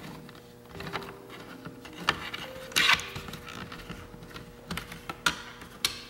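A handful of sharp, scattered clicks and light taps as a hand-held T10 Torx bit works a screw out of a plastic car side-mirror housing and the plastic is handled.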